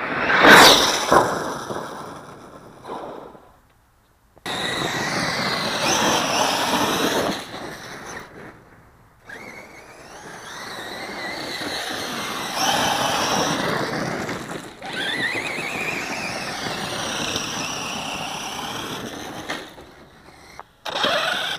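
Electric 1/8-scale RC monster truck driving hard over a dirt track: the motor whine rises and falls with the throttle over tyre and gravel noise. A loud knock about half a second in, a hard landing or impact, is the loudest moment, and the sound drops out briefly twice.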